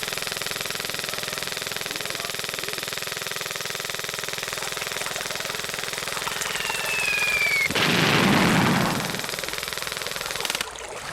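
Battle sound effects: sustained rapid machine-gun fire, with a falling whistle about six to seven seconds in followed by a loud blast like an incoming shell exploding; the gunfire cuts off abruptly near the end.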